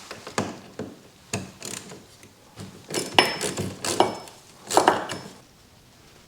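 Hand tools and metal parts clinking, knocking and scraping in a string of short, irregular knocks, the loudest about three and five seconds in, one with a brief metallic ring.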